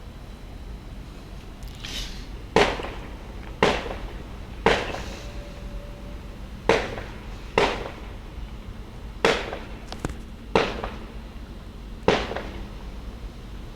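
Fireworks exploding: about nine sharp bangs at irregular intervals of roughly a second, each trailing off in a short echo.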